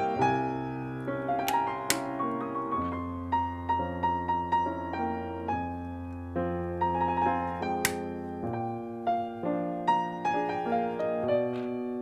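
Solo piano music with sustained notes over a low bass line. Three sharp clicks cut through it, two close together about a second and a half in and one near eight seconds: mechanical key switches being snapped into a keyboard plate.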